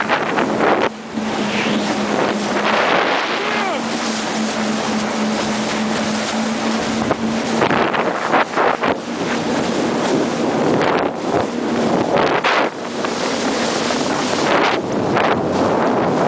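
Wind buffeting the microphone over the running engine of a watercraft and rushing water. A steady engine hum shows through for about the first half.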